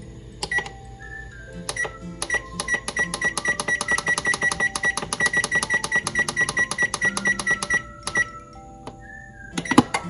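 Background music with a fast, steady ticking beat, about five ticks a second, that stops about eight seconds in, followed by a single loud hit near the end.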